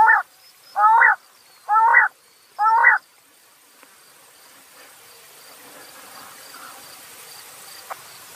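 Japanese quail calling: four short calls, each rising in pitch, about a second apart, which stop about three seconds in.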